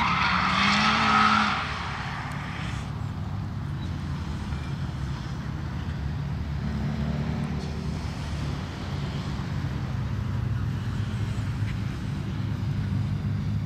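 Hand-held fire extinguisher discharging with a loud hiss for about the first second and a half, then stopping. After it a car engine idles steadily.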